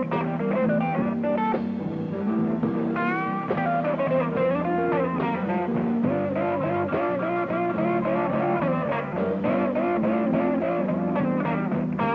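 Electric blues band playing an instrumental passage between vocal lines: guitar over a steady rhythm, with a lead line that slides up and down in pitch and repeats a short figure near the middle.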